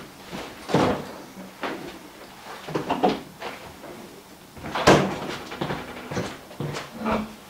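A refrigerator door is opened and then shut with a thump about five seconds in, among several smaller knocks.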